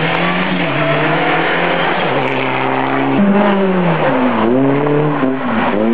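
Rally car engines running hard. The first car approaches at a steady high engine note. After a sudden cut about three seconds in, a Honda Civic hatchback rally car passes close by, its engine note falling and then rising again as it lifts off and accelerates.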